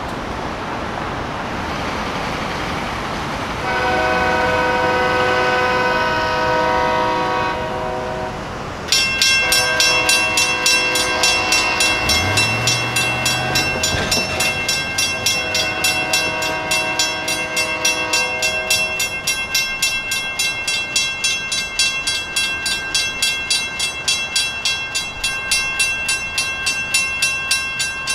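Freight locomotive horn blowing three long blasts for the grade crossing. About a third of the way in, the crossing's WCH mechanical bell starts ringing with rapid, even strikes that continue steadily under and after the horn.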